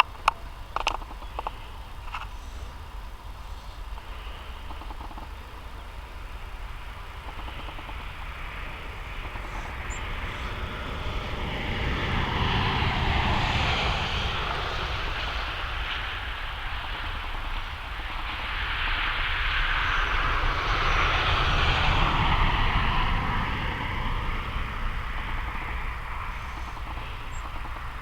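Aircraft passing overhead, its drone swelling and fading over about ten seconds, twice, loudest about 13 s and 21 s in. A few light clicks near the start.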